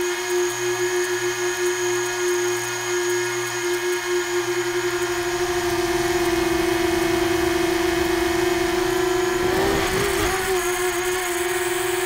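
Tricopter's F80 1900KV brushless motors spinning 6-inch three-blade propellers with a steady high hum. The pitch wavers briefly about ten seconds in, as the throttle changes.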